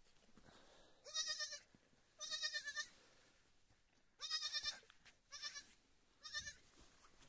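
A newborn lamb bleating five times, short high-pitched wavering bleats about a second apart.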